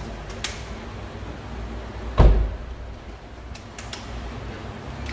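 A Proton X70's front door shut once about two seconds in: a single heavy, low thump. There are a few light clicks before and after it.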